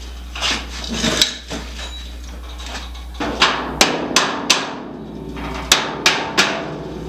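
Hammer striking the sheet-metal of a car door: some clatter first, then four quick ringing blows, a pause, and three more. The blows are reshaping the door's bottom edge so that it stops rubbing.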